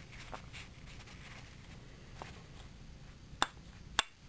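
Hot aluminium crankcase of an OS FS-52 four-stroke glow engine tapped on a wooden block, two sharp knocks about half a second apart near the end, to knock out its ball bearing. Before that, soft rustling as it is handled in a paper towel.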